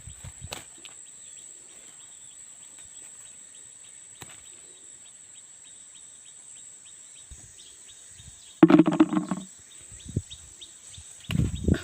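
Field insects, crickets or similar, making a steady high-pitched whine and a regular ticking of about four ticks a second. Near nine seconds in there is one short, loud pitched call, and near the end rustling and handling noise.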